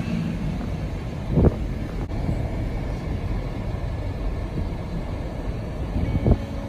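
Steady low rumble of a car driving across frozen lake ice, with a short thump about a second and a half in and another near the end.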